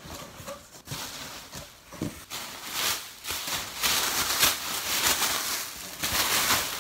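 Clear plastic packing material rustling and crinkling as it is pulled out of a cardboard box and tossed about, getting denser and louder after about three seconds, with a couple of short knocks from handling the box near the start.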